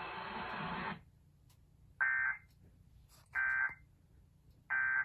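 Emergency Alert System end-of-message signal: three short, harsh digital data bursts about a second apart, marking the end of the alert. Before them, the steady hiss of the broadcast audio cuts off about a second in.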